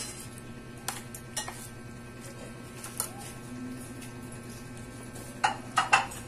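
Cutlery and dishes clinking and knocking on a dining table as food is handled: a couple of sharp knocks about a second in, one more around three seconds, and a quick cluster near the end, over a steady low hum.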